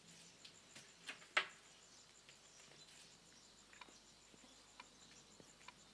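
Quiet room tone broken by a few faint, irregularly spaced clicks and ticks, the sharpest about one and a half seconds in.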